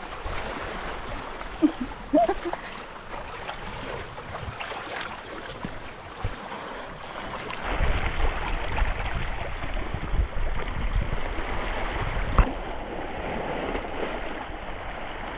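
Small waves lapping and washing over a rocky shoreline, with wind rumbling on the microphone in the second half and a single sharp click about twelve seconds in.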